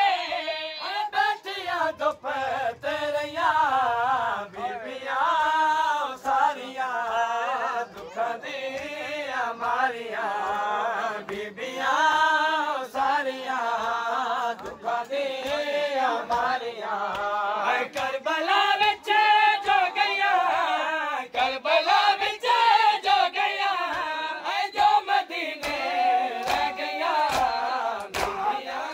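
Crowd of men chanting a noha, a Muharram lament, together in unison, with a regular beat of open hands slapping bare chests (matam) keeping time under the chant.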